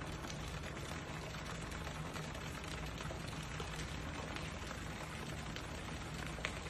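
Steady splashing and trickling of water from a pool's statue fountain, with a few faint ticks of droplets over a low steady hum.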